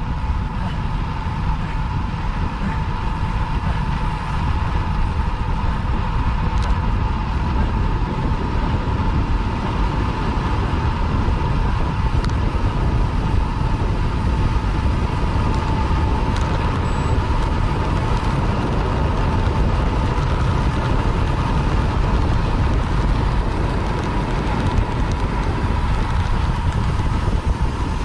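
Wind rushing over a bike-mounted action camera's microphone while riding a road bicycle at speed, with steady road noise. A constant mid-pitched hum runs through it.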